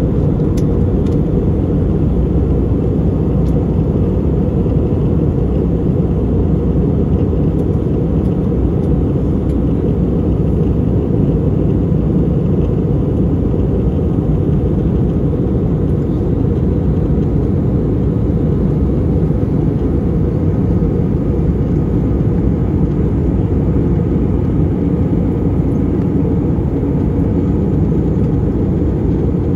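Steady cabin noise of an Airbus A320 in flight, heard from a window seat: the low, even rumble of the engines and the airflow over the fuselage, with no change in level.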